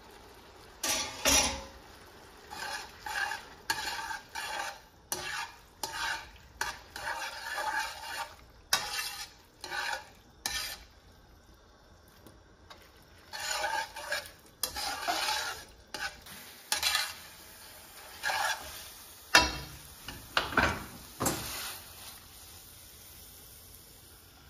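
Cooked spaghetti being stirred and tossed with a utensil in an aluminium frying pan with a little cooking liquid: repeated short bursts of wet scraping and clinking against the pan, with a brief pause about halfway through.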